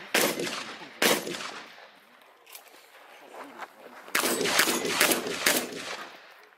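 Shotgun firing on a practical-shooting stage: two shots about a second apart, a pause with a few faint knocks, then a quick string of several shots about four seconds in, each trailing an echo.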